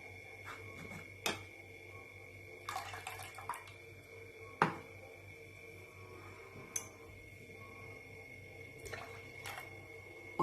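Utensil clinking against a kitchen vessel, several separate sharp clinks with the loudest a little before halfway, and a short spell of splashing liquid about three seconds in, as ground spice paste is stirred into tamarind water.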